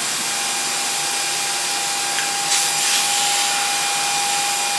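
Steady whirring of an electric air blower, with a constant thin whine over a hiss of moving air.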